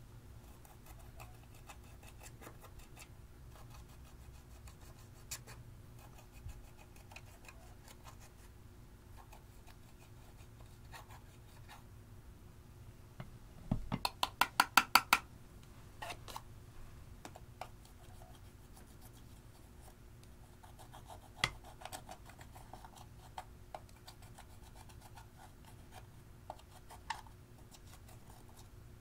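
Faint scraping and crackling as pressed eyeshadow is dug and crumbled out of a plastic palette with a small tool. About halfway through comes a quick run of about eight sharp taps as the palette is knocked over the glass dish, with a few single clicks later.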